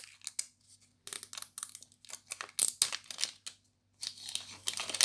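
A blind-bag packet being crinkled and torn open by hand: bursts of crackling and ripping about a second in, near the middle and again near the end, with short pauses between.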